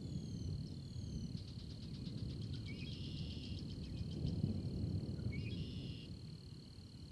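Low, steady storm rumble with a continuous high insect drone over it. About a second in, a fast trill runs for roughly two seconds, and short bird chirps come twice.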